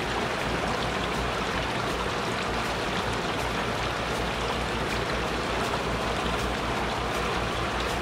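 Shallow water running steadily over rocks in a small stream, rushing and splashing.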